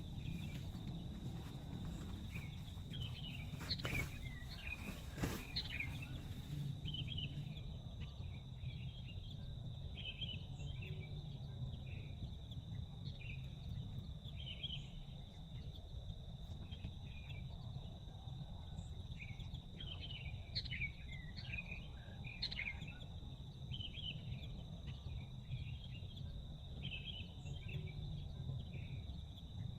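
Forest ambience: birds chirping in short, repeated bursts over a steady, high-pitched insect drone and a low, steady background rumble. Two sharp clicks come about four and five seconds in.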